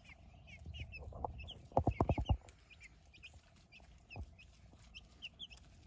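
Four-week-old chicks peeping, a steady scatter of short high cheeps. About two seconds in comes a quick run of about six soft thumps, with one more a couple of seconds later.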